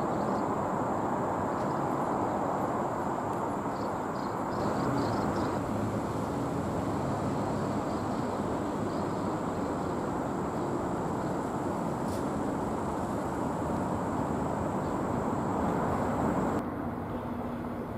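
Steady mechanical rumble of a rail yard with a faint constant high whine over it; the sound changes abruptly near the end.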